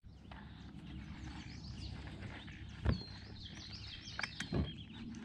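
Small birds chirping over a quiet outdoor background by a reedy lake, with two soft knocks, the louder about three seconds in and another about a second and a half later.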